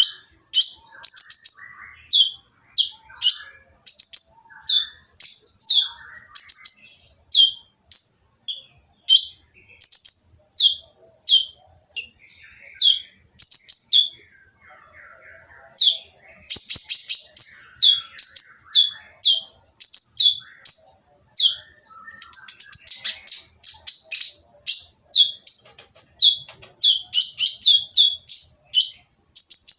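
A kolibri ninja sunbird singing a harsh, fast song of short, high, falling chirps, about two a second. The song pauses briefly about halfway through, then resumes as a denser burst of chatter.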